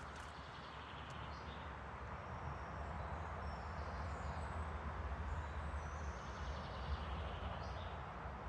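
Riverbank ambience: a steady wash of flowing water over a constant low rumble, with faint chirps of distant birds.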